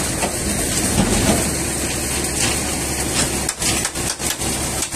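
Heavy truck engine running steadily with a low rumble, and a few short knocks or clanks about three and a half seconds in.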